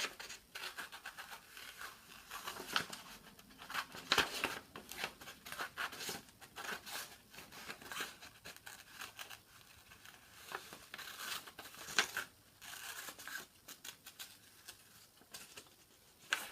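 Scissors snipping irregularly as they trim around a paper scroll-saw pattern, with the sheet rustling.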